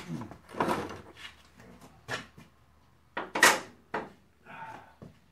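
A person moving about and handling things in a garage: a string of short knocks and scuffs, the loudest about three and a half seconds in, then a brief scrape near the end.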